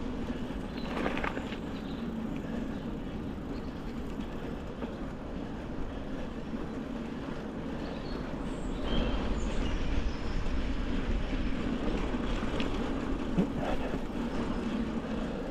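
Norco Storm mountain bike rolling along a trail: a steady rumble of the tyres and bike, louder from about nine seconds in.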